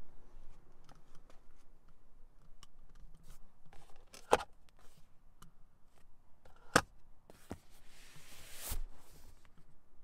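Rear fold-down centre armrest and cupholder lid of a 2019 Honda Clarity being worked by hand: two sharp plastic clicks about two and a half seconds apart, then a rubbing rustle of a hand on leather ending in a knock as the armrest is folded away.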